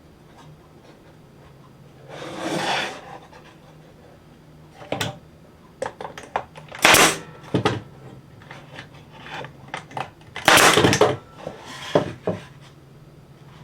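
Workshop handling noises: wood and tools being moved and set down, with scattered clicks and knocks and several louder rubbing or scraping bursts, over a faint steady low hum.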